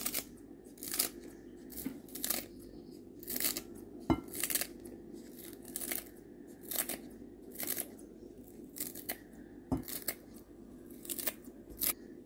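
Tefal kitchen scissors snipping green onion stalks, a crisp snip roughly once or twice a second, often in quick pairs.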